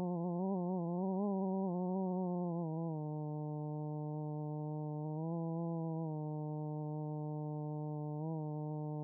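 Data sonification of a simulated protein folding trajectory: a synthesized buzzy tone with many overtones whose pitch follows the data values. For about three seconds it wavers quickly up and down while the data are high and scattered. It then drops a little and holds steady as the trajectory settles into a low, quiet band, with brief small pitch rises about five and eight seconds in.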